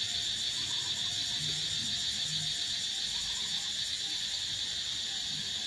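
Steady, high-pitched drone of insects calling, with a faint fast pulse in it and no break.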